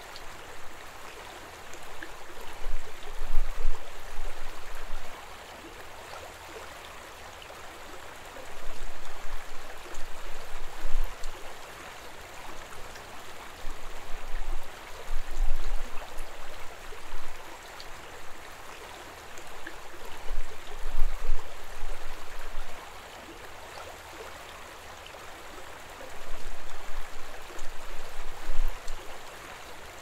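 Shallow mountain stream rushing over a rocky bed, a steady splashing hiss. A low rumble swells and fades about every five or six seconds under it.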